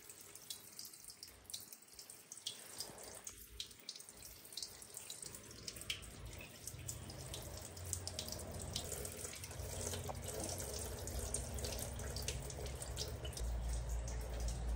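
Water spraying from a handheld shower head and splashing and dripping onto a tiled floor, getting louder toward the end.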